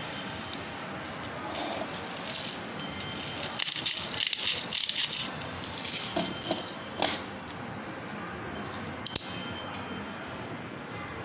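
Rattling and clicking from handling a PT92 gas blowback airsoft pistol, with a dense run of rattles about four seconds in, then a few single clicks.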